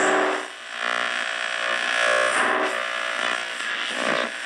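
Music from an AM broadcast station playing through a Hallicrafters S-38D tube receiver's external speaker: the restored radio is receiving on the AM band.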